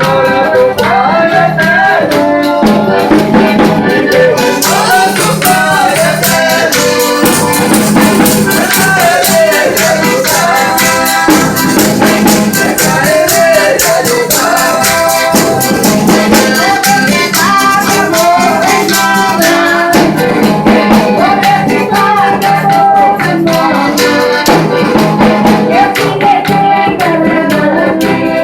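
Folia do Divino devotional folk music: voices singing a wavering melody over instruments, with fast shaken percussion that comes in a few seconds in and drops out a few seconds before the end.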